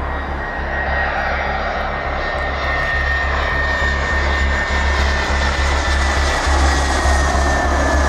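Airbus A319-112 airliner's CFM56 jet engines on landing approach: a broad rushing noise with a high whine that slides slowly down in pitch as the aircraft passes, growing a little louder near the end.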